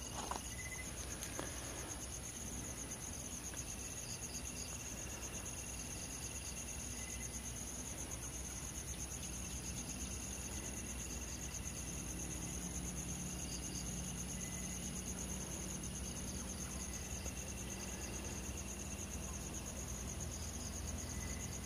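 Crickets trilling in a steady, high-pitched night chorus, with a faint low hum underneath.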